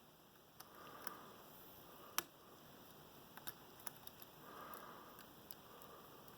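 Faint, scattered small metallic clicks of a pick and tension wrench working the pins in the six-pin core of an American 1165 lock, with one sharper click about two seconds in.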